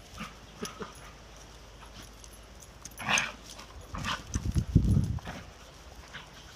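Two dogs, a Koolie and a Kelpie, play-fighting: a short sharp dog sound about three seconds in, then low growling and scuffling that is loudest near five seconds.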